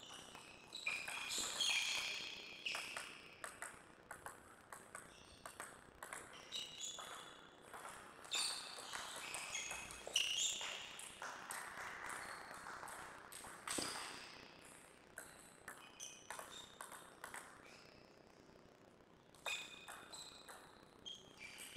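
Table tennis ball clicking off paddles and bouncing on the table during a rally, with scattered single bounces of the ball between points.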